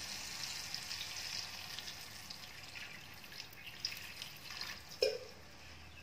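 Hilsa fish sizzling in mustard oil and mustard paste in a pan as water is poured in from a steel flask, with crackles and water running into the pan; the sizzle fades steadily as the water goes in. A short knock about five seconds in.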